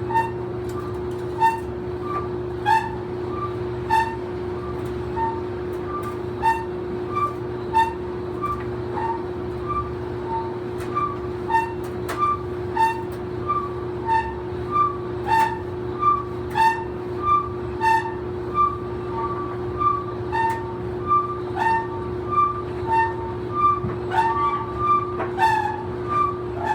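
Old clothes dryer running: a steady motor hum with a two-note squeak that repeats in a regular rhythm with the turning drum, about every second and a half at first and closer to twice as fast in the second half.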